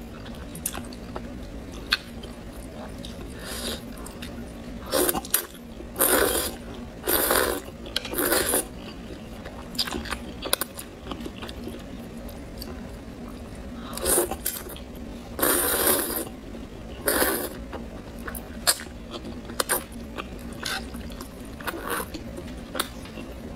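A person eating noodles close to the microphone: several long slurps, mostly in two runs a third of the way in and past the middle, with wet chewing and lip-smacking clicks between them.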